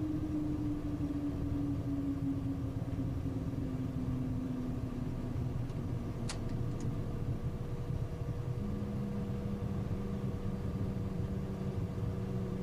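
Cockpit noise of a Cessna Citation business jet just after landing: a steady low rumble with an engine tone sliding slowly down in pitch over the first few seconds. A single click sounds about six seconds in, and a new steady hum joins about two-thirds of the way through.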